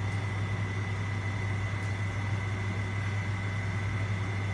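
A steady low machine hum with a thin, high whine over it, even in level throughout, and one or two faint ticks.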